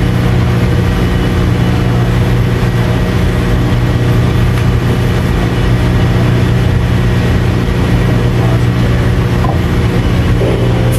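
Ship's machinery and ventilation hum: a loud, steady drone with a constant low tone that does not change.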